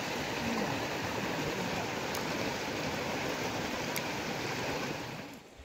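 Shallow river rapids running over rocks: a steady rush of water that drops away sharply near the end.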